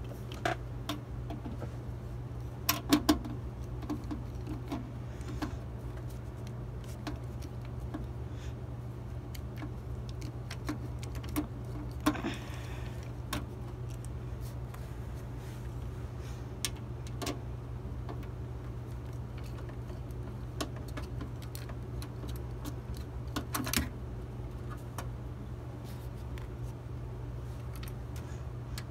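Scattered light clicks and taps of a screwdriver and screws against a metal desktop computer case as the case screws are worked out, with a few louder knocks a few seconds in, around the middle and near the end. A steady low hum runs underneath.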